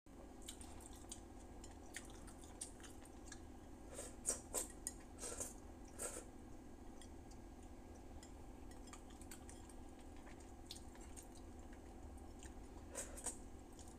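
Faint eating sounds of someone eating with her hands: small lip smacks and wet mouth clicks, a few louder ones about four to six seconds in while she licks the plate, over a steady low hum.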